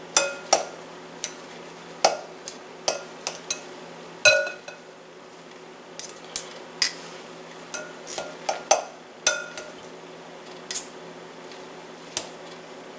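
Metal fork and knife clinking and scraping against a glass mixing bowl while cutting up shredded rotisserie chicken: irregular sharp clinks, some ringing briefly, the loudest about four seconds in.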